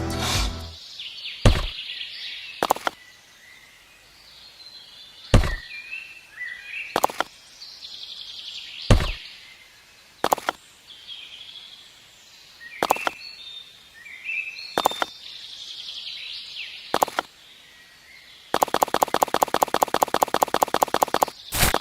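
Birds chirping, with sharp single knocks every one to two seconds. Near the end a fast, even run of clicks starts.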